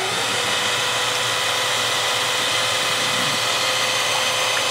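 A hand drill running steadily at low speed, about 500 RPM, spinning a small bronze water pump as it pumps water through a clear plastic hose. It makes a constant whine over a hiss.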